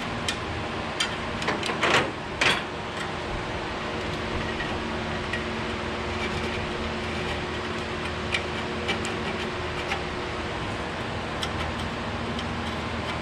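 Scattered clicks and knocks of hand tools working on a truck's hood latch, two louder ones about two seconds in, over a steady mechanical hum.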